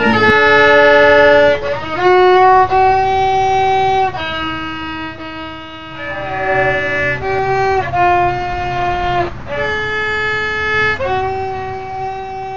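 Fiddle playing a slow melody of long held notes, sliding into some of them.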